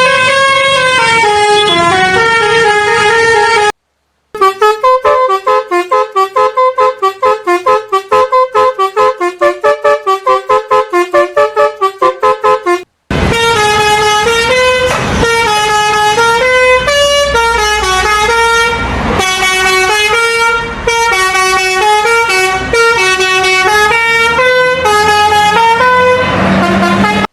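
Indonesian bus 'telolet' Basuri multi-tone horns playing loud melodic toots, the pitch stepping up and down in tune-like phrases. In the middle stretch the horn plays rapid short toots, about three a second, before long flowing melodic phrases return.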